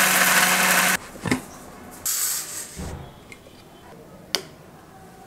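Electric mixer grinder running with its lid held down, grinding dry spice mix in the steel jar, then switched off and cutting out about a second in. Afterwards a few scrapes and taps of a steel spoon in the steel jar of ground powder.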